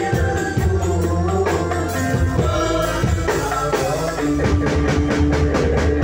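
Live Islamic devotional (sholawat) hadroh ensemble music: rebana frame drums and a darbuka beat over keyboard, electric guitar and bass, with voices singing into microphones. The drum strokes come thicker over the last two seconds.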